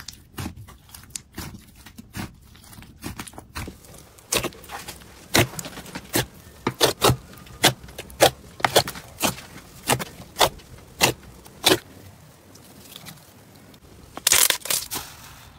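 Slime squished and poked by hand, giving sharp wet clicks and pops. Through the middle comes an even run of pops, a little under two a second, and near the end a short burst of denser crackling.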